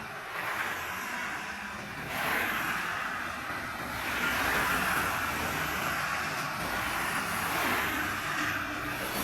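Toll-road traffic: several vehicles pass in turn, and the tyre and engine noise swells as each goes by.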